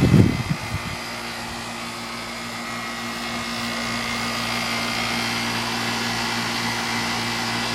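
A 2001 York 3.5-ton central air conditioner's outdoor unit running loud: the Bristol reciprocating compressor holds a steady hum under the whir of the condenser fan. A brief low rumble comes in the first second.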